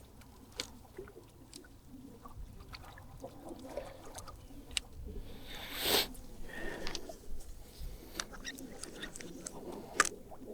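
Irregular clicks, taps and rustles of fishing tackle and a just-caught fish being handled, with a louder swish about six seconds in and a sharp click near the end.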